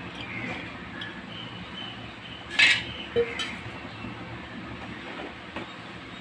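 Flat metal spatula stirring rice into boiling water in an aluminium pot, scraping and clinking against the pot: one loud sharp clink about halfway through, then a couple of lighter ones, over a steady rumbling hiss.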